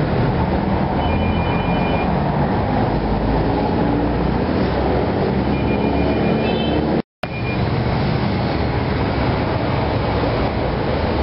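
Steady road traffic noise, a loud low rumble, with short runs of faint high beeping a few times. The sound cuts out for a moment about seven seconds in.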